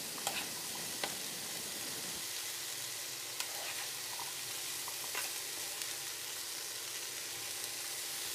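Chickpeas and onions sizzling in a frying pan as they are stirred with a wooden spatula, with a few light ticks of the spatula against the pan.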